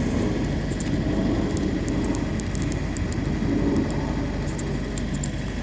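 Steady outdoor background noise with a low hum, with faint light clicks of wiring and plastic parts being handled.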